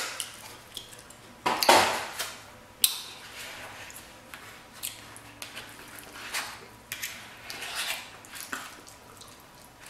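Plastic fork scraping and clicking against a black plastic takeout bowl as lasagna is scooped out and eaten. There is a louder scrape about a second and a half in and a sharp click soon after, then scattered small clicks and soft eating sounds.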